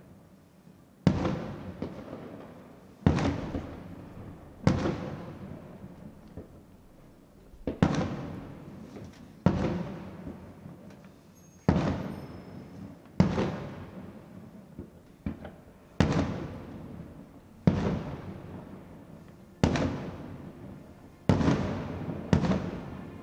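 Aerial fireworks shells bursting in a steady sequence, about a dozen sharp bangs one to two seconds apart, each trailing off in a long echoing rumble.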